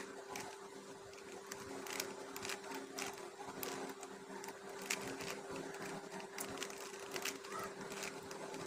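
Rubik's cube being turned by hand: faint, irregular plastic clicks of the layers rotating, a few a second, over a steady low electrical hum.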